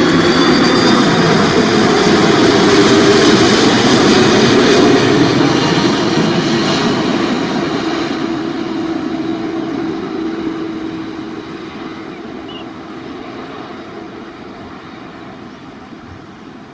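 Airbus A330-300 airliner on landing approach passing low overhead, its jet engines loud for the first six seconds, with a low hum that drops slightly in pitch as it goes by, then fading steadily as the plane moves away.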